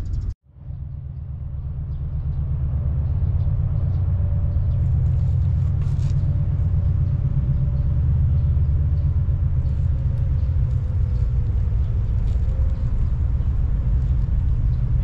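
Steady low outdoor rumble with a faint hum that drifts slightly lower in pitch. It drops out briefly just after the start.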